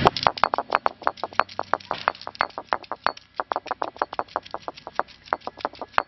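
Stone roller of a South Indian grinding stone (ammikkal) tapping quickly on the granite slab to crush garlic cloves: a fast run of sharp stone-on-stone knocks, about eight a second.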